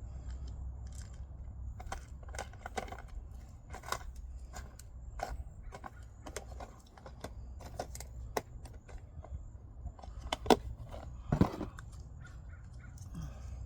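Irregular clicks, taps and knocks of hands and tools at work in garden soil while seeds are planted, with a louder knock about eleven seconds in, over a steady low rumble.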